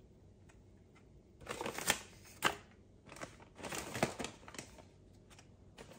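A cat rummaging through pet-treat packets and boxes on a shelf: plastic packaging crinkling and rustling in three short bursts, with one sharp click in between.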